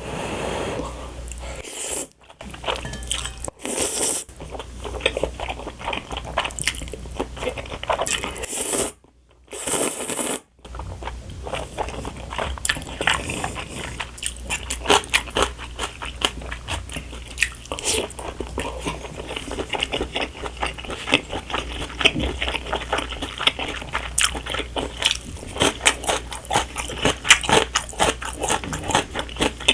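A person eating close to the microphone, chewing steadily with many crisp, crunching bites. The sound drops out briefly about two seconds in and again around nine to ten seconds in, and the crunching is thickest after that.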